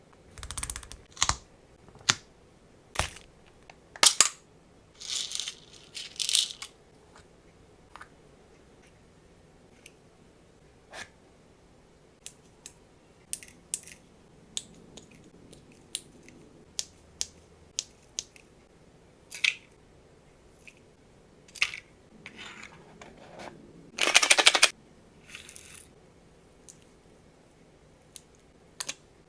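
Hand handling of nano tape and craft materials: scattered sharp clicks and taps, with a few short crinkling, peeling noises, the loudest lasting about a second near the end.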